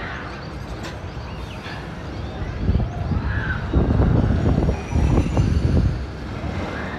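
Wind buffeting the phone's microphone: a steady low rumble, with three stronger gusts in the middle.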